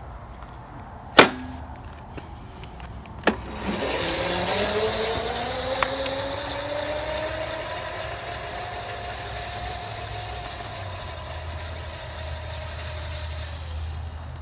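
Two sharp knocks, then a Razor E325 electric scooter's chain-drive motor whining as it pulls away. The whine rises slowly in pitch over a few seconds, levels off, and fades as the scooter rides off.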